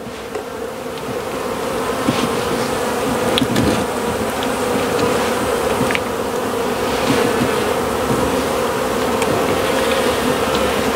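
Honeybees buzzing in a steady, fairly loud swarm hum close by, drawn to honey from opened comb. A few faint scratches of comb being uncapped come through underneath.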